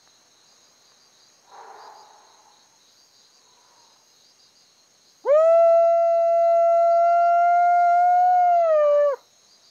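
A man's long squatch call through cupped hands, voiced to draw a reply from a Yeti or Bigfoot. It is one call of about four seconds, starting about five seconds in: it sweeps up quickly, holds a steady pitch, and drops away at the end.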